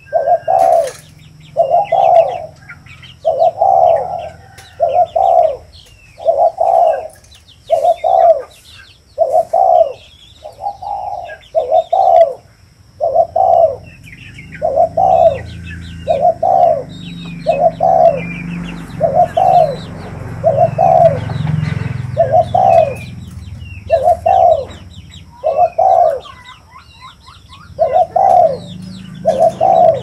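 Spotted dove cooing over and over: a long run of evenly spaced coos, about one every second and a half, with a short pause near the end. Small birds chirp faintly behind.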